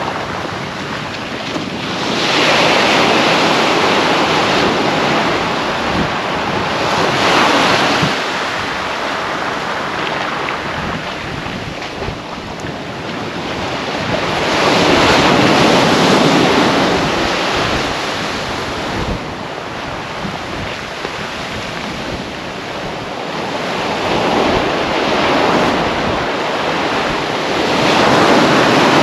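Waves breaking and washing up a sand-and-shingle beach, the surf swelling and fading every several seconds, with wind buffeting the microphone.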